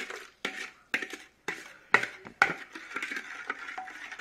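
A spoon clinking and scraping against a mixing bowl while stirring yeast into water and sugar for pizza dough. There are sharp taps about twice a second, then a quicker run of small clicks and scrapes over the last second or so.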